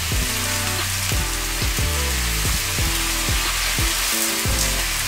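Sesame-crusted tuna steaks and stir-fried vegetables sizzling steadily in oil, in a frying pan and a wok, under background music.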